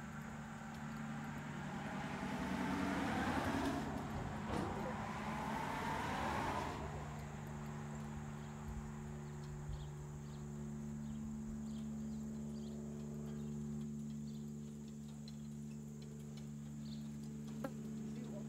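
A road vehicle passing by, swelling over the first few seconds and gone by about seven seconds in, over a steady low hum.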